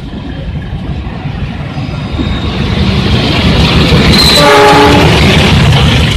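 Train running by, its rumble and wheel noise growing louder, with one short blast of the locomotive horn about four and a half seconds in.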